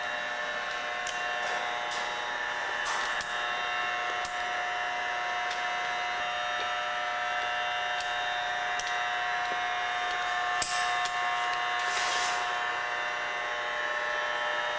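Steady electrical hum made of several unchanging whining tones, with scattered faint clicks and a brief louder rustle late on.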